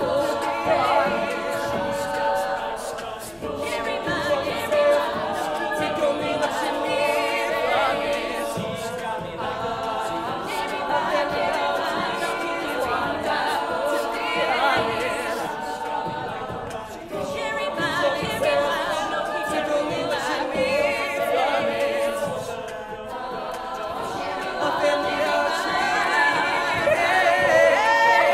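Mixed-voice a cappella group singing layered harmonies behind a lead vocal, with a vocal-percussion beat carried under the voices. The beat comes from beatboxing into a handheld mic.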